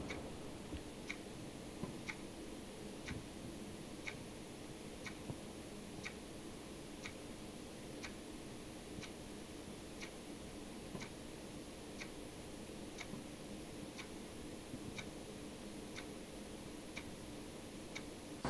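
Regular ticking, about one tick a second, like a clock, over a faint steady hum.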